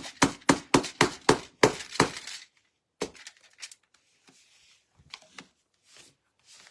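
A plastic craft-paint bottle being handled with quick, sharp clacks, about three to four a second for a couple of seconds, followed by a few lighter clicks.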